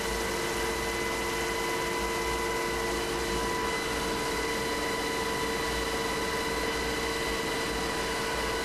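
HH-60G Pave Hawk helicopter in flight, heard from inside its cabin: a steady rushing noise with several steady high whining tones over it.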